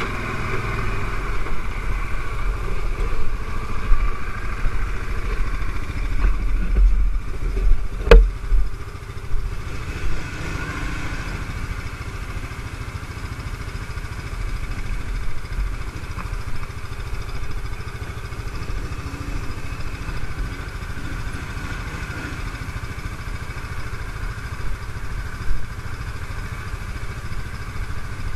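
CFmoto X5 ATV engine running, uneven for the first ten seconds with one sharp knock about eight seconds in, then steadier and a little quieter.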